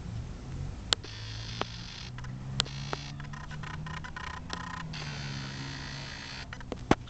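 Video camera's zoom motor whirring as the lens zooms in and back out, a low hum with slowly shifting pitch and hiss that starts and stops, with several sharp clicks, the loudest near the end.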